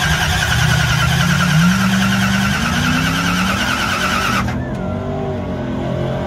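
Red Chevy II Nova drag car's engine being started: a high whine and hiss over a low engine sound that rises in pitch. The whine and hiss cut off abruptly about four and a half seconds in, leaving the lower engine sound.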